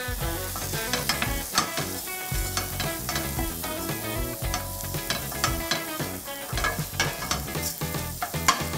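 Wooden spoon stirring star-shaped pasta as it toasts in melted butter in a pan: a steady sizzle with many quick scrapes and clicks of the spoon and pasta against the pan. This is the pasta being browned in butter before the boiling water goes in for a pasta pilaf.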